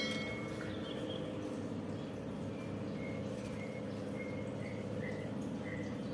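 Lovebird giving short, repeated high chirps about twice a second, over a steady low hum.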